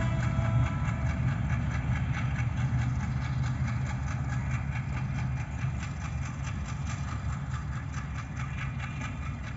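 Diesel locomotive running light, its engine making a steady low rumble that slowly fades as it moves away. The tail of a horn note dies away within the first second.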